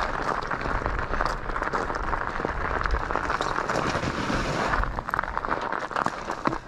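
Continuous crunching and scuffing on packed snow as the rider moves over it, a dense run of small crackles that eases near the end.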